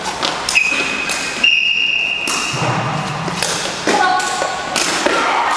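Repeated thuds and taps of play in a jianzi (shuttlecock-kicking) game, with voices shouting. A steady high-pitched tone sounds from about half a second in for around two seconds.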